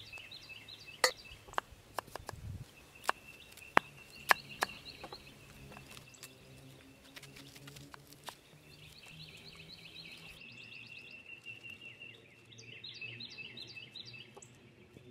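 Birds singing, with a series of sharp knocks and clicks through the first half, the loudest about a second in and twice around four seconds in.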